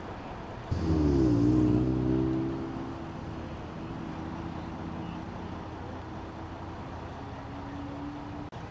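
Street traffic noise, then about a second in a heavy vehicle's engine starts up loud and sudden, with a brief air hiss. Its drone dips a little in pitch, holds, and then eases off into a fainter steady hum.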